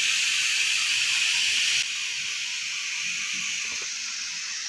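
Steady hiss of air from a Nitto Kohki Medo LA-45C linear-piston air pump blowing through a hose into a tank of water, sending up a dense stream of bubbles. The hiss drops somewhat about two seconds in and then holds steady.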